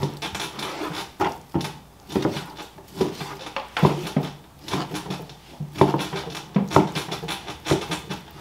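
Long curved butcher's knife slicing beef into stew-meat cubes, the blade knocking on a plastic cutting board in a dozen or so uneven strokes.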